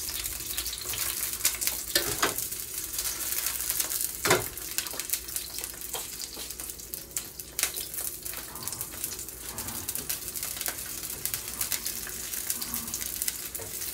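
Fish balls and grilled fish pieces sizzling steadily as they fry in a frying pan, with a few sharp clicks as a metal utensil turns them against the pan, the loudest about four seconds in.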